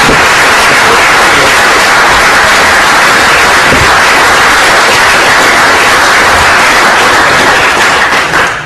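Loud, steady hiss like static or white noise, strongest in the middle range, which breaks off near the end.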